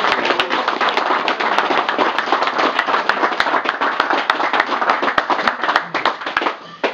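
A small group of people clapping their hands in applause, the claps dying away just before the end.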